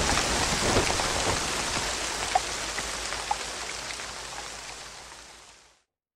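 Rain sound effect at the close of a song: an even patter with scattered drops, fading out steadily and then cutting to silence near the end.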